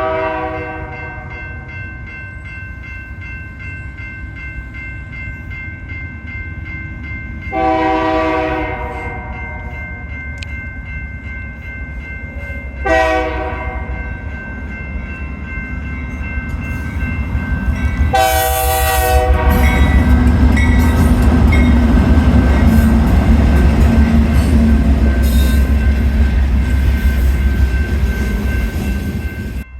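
GE diesel freight locomotive sounding its multi-chime air horn in the long, long, short, long grade-crossing pattern. It then passes close by with a loud, steady rumble of engine and wheels.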